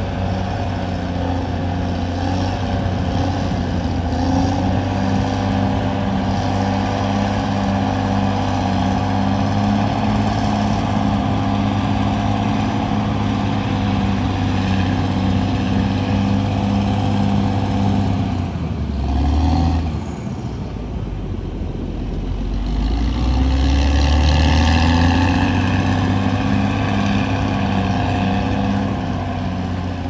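Caterpillar D6R XL bulldozer's diesel engine running steadily under load while it pushes dirt. Past the middle the engine dips briefly, then revs up again and runs louder.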